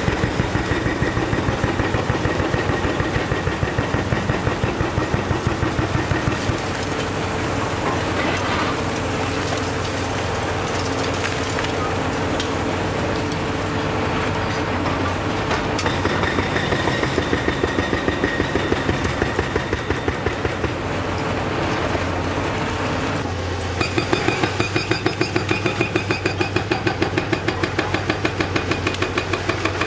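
Hydraulic demolition hammers on Caterpillar excavators pounding a concrete bridge in rapid, repeated blows over the steady running of the diesel engines. The hammering comes in spells, with stretches of engine noise between, and is loudest near the end.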